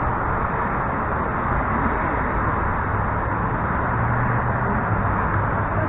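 Steady rushing background noise at an even level, with no distinct event.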